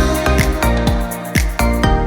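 Background pop/R&B music with a steady beat, in a short instrumental gap between sung lines.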